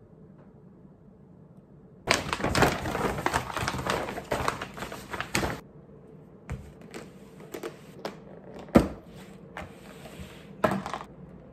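Plastic packaging being handled: a dense run of crackling clicks for about three and a half seconds, starting about two seconds in. Then scattered clicks and light knocks follow, with one sharp knock past the middle.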